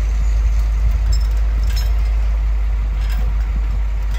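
A steady low rumble like a running engine, with a few faint metallic clinks from the chain hoist holding a steam locomotive driving wheel.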